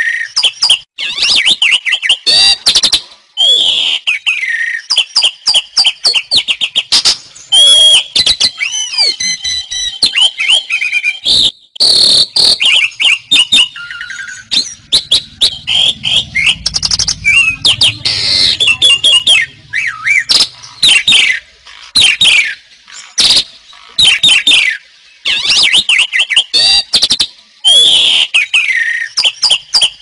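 Asian pied starling (jalak suren) singing hard: a long, continuous run of rapid chattering clicks mixed with slurred, gliding whistles.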